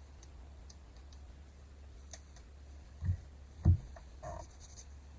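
Makeup packaging being handled on a table: scattered light clicks and taps, with two dull thumps a little past the middle as items are set down.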